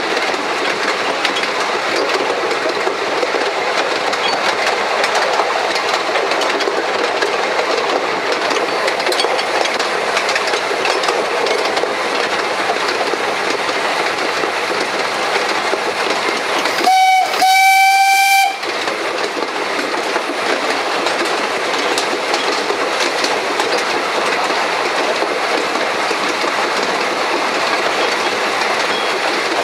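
1883 Hunslet narrow-gauge steam locomotive running along the line, a steady wheel-on-rail and running noise heard from its tender. Just past halfway its steam whistle sounds a short toot and then a longer one, the loudest sound here.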